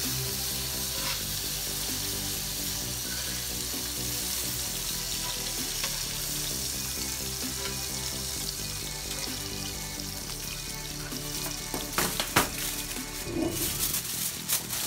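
Leftover butter and oil sizzling steadily in a cast iron skillet over charcoal, under a background music track. A few sharp clicks come about twelve seconds in.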